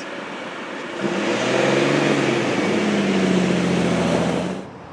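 A minivan drives past close by across the railroad crossing, with engine hum over tyre noise on the road. It comes in about a second in and cuts off suddenly near the end.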